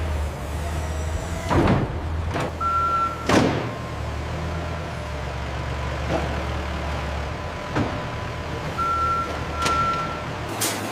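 A vehicle's engine running with a reversing alarm sounding two high beeps, mixed with several sharp clanks and knocks of warehouse handling. The engine hum drops out near the end.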